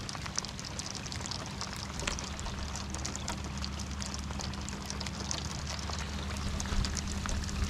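Steady rain falling, with many small drop hits close by, over a low steady hum.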